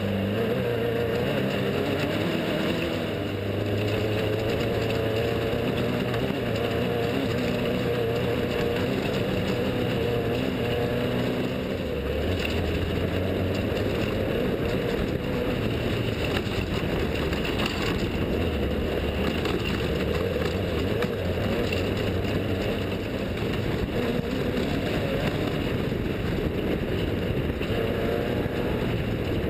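Desert race vehicle's engine running steadily under a constant rush of noise, its pitch stepping up and down several times as the revs change.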